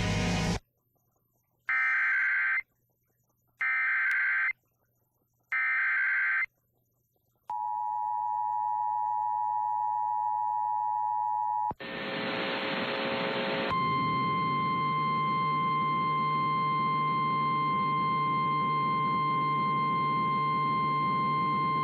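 Emergency Alert System tones on a radio broadcast. Three short bursts of warbling digital header data come about two seconds apart, then the two-tone attention signal sounds as a steady dual tone for about four seconds. After a brief burst of noise, a single steady high tone, the NOAA Weather Radio warning alert tone, plays for about nine seconds over a hum.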